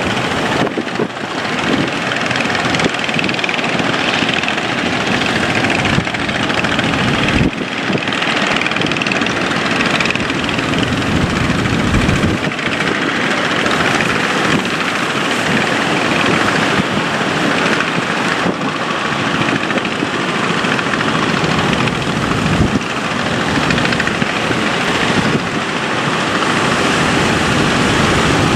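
Motor fishing boat under way in rough water: a loud, steady rush of engine, wind and water, broken by a few dull low thumps.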